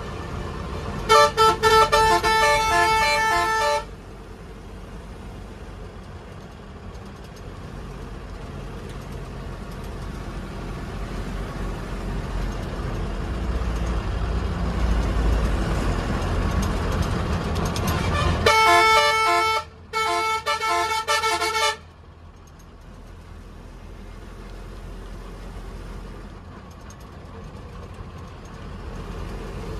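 Bus horn sounding two loud blasts of about three seconds each, one about a second in and one about eighteen seconds in. The second blast has a brief break. Each blast is a multi-tone horn with a fast pulsing tone. Between the blasts the bus engine and road noise rumble in the cabin, growing louder before the second blast.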